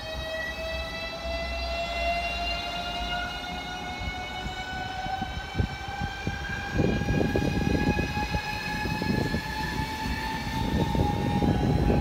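ES2G Lastochka (Siemens Desiro RUS) electric train pulling away: its electric traction drive gives a whine of several tones climbing together as it picks up speed. From about seven seconds in, a louder rumble and clatter of wheels on rail joins as the cars run past.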